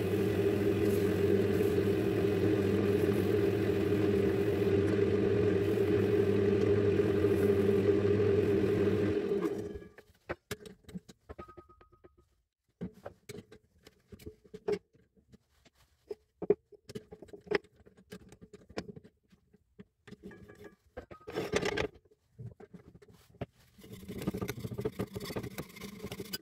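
Wood lathe motor running steadily with a cloth held against the spinning disc, switched off and winding down about nine to ten seconds in. After that come scattered clicks and knocks of handling the blank, and near the end a scraping as a wide blade is worked against it.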